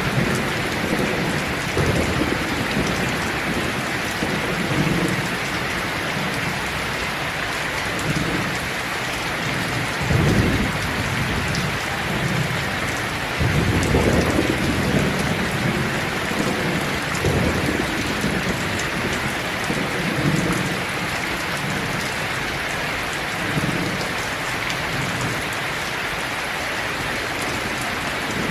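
Steady heavy rain falling on leaves, a dense even hiss, with low thunder rumbles swelling and fading several times, the strongest about a third of the way in and around the middle.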